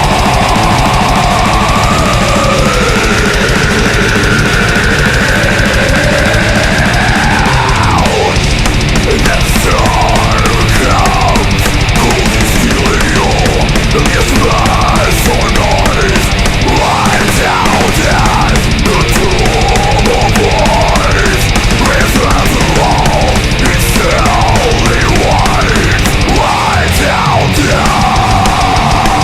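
Death metal music played loud and dense, with distorted band and drums and a line sliding up and down in pitch above them: long sweeps at first, then quicker rising and falling strokes from about 8 seconds in.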